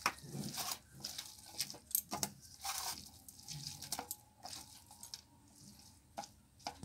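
A hand squeezing and mixing boiled, wet fenugreek leaves with salt on a steel plate: irregular soft wet squelches and rustles, with a few sharper clicks.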